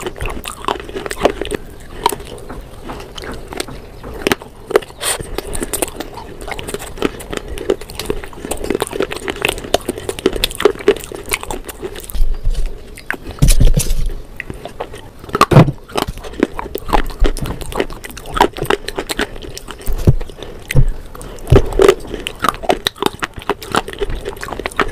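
Crunching and chewing of clay slate bars coated in cream paste: a dense, irregular run of crisp cracks, with several louder bites in the second half.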